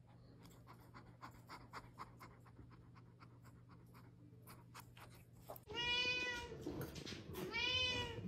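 Domestic cat giving two loud, drawn-out meows about a second apart, each rising and falling in pitch. They come after several seconds of faint clicks.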